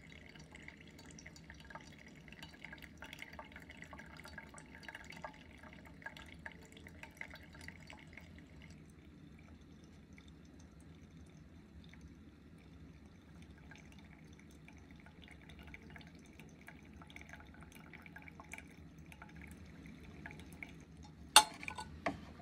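Hot water poured in a thin stream onto the coffee bed in a ceramic Kalita trapezoid dripper, with coffee trickling and dripping through into the glass server below; the soft trickling and ticking grows fainter after about nine seconds. Near the end come two sharp clinks, the first the loudest.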